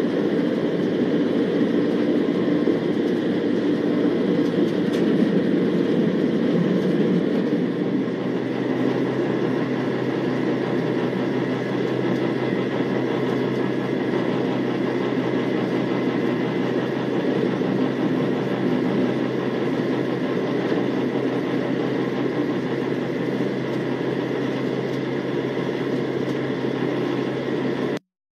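Van's RV-12's Rotax 912 four-cylinder engine and propeller running at low power while the aircraft taxis, heard from inside the cockpit. About eight seconds in, the engine note drops a little and settles into a steadier hum. The sound cuts off suddenly near the end.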